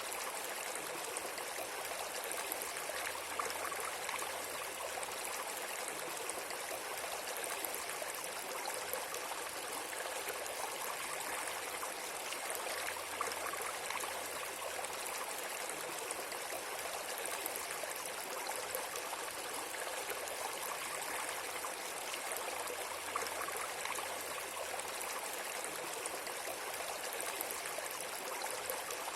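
Steady rushing of flowing water, like a stream, with an even hiss and no breaks.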